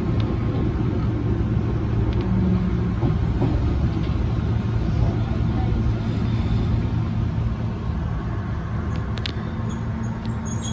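Keihan 600-series electric train running, heard from inside the front car: a steady low rumble of wheels on rail under a constant motor hum as it pulls out of the station. A couple of sharp clicks sound near the end.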